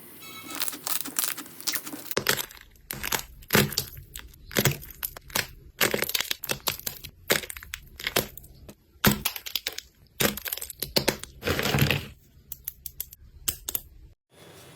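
Crunchy slime being squeezed and pressed by hand, giving a dense, irregular run of sharp crackles and pops.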